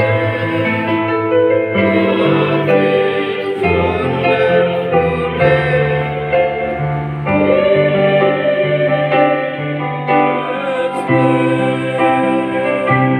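Church choir singing a song in parts, held notes moving over a low keyboard bass line.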